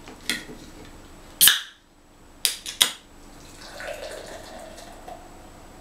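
A beer can's ring-pull cracked open with a short, loud hiss, followed by a few sharp clinks, then dark beer pouring from the can into a tilted pint glass.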